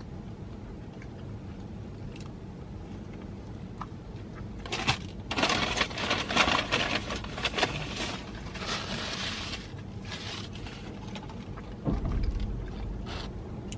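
Close-up eating sounds: after a few quiet seconds comes a burst of crunching and crinkling, from crisp fast food and its paper packaging, lasting about five seconds, followed by a few scattered clicks.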